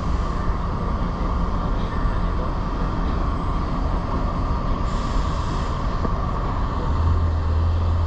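Panama Canal electric towing locomotive (a "mule") running on the lock wall beside the ship, a steady mechanical rumble; a deeper hum swells in over the last second.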